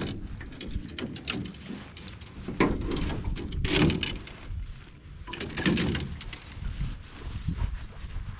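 Fishing tackle being handled while a drop-shot rig is set up: scattered sharp clicks and knocks with bursts of rustling, over a steady low rumble.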